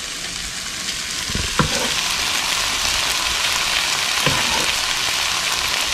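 Chopped poblano chile, onion and tomato frying in a skillet with a steady sizzle that grows a little louder after the first second. A few light knocks sound in the pan.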